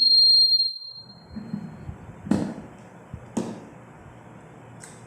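A high steady beep-like tone fades out within the first second. Then come two sharp knocks or cracks about a second apart, and a fainter one near the end, over a low steady hiss.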